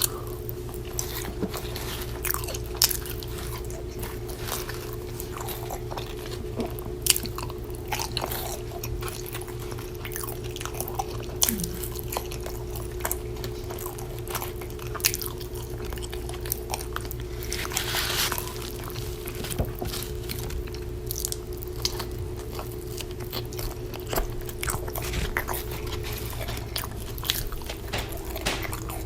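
Close-miked chewing and biting of In-N-Out burger and fries, with many short, irregular crunchy clicks and wet mouth sounds. A steady low hum and a faint constant tone run underneath.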